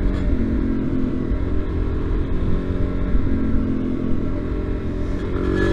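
Supermoto motorcycle engine running at a steady cruise on a paved road, heard from the rider's own bike; the engine note rises near the end as the throttle opens.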